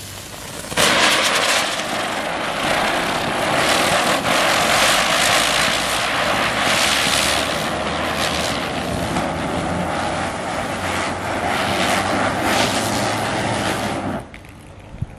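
Standard Fireworks Twin Spin ground spinner (chakri) catching about a second in and spinning with a loud steady hiss and whir, a faint steady whine underneath. It burns out and stops abruptly near the end.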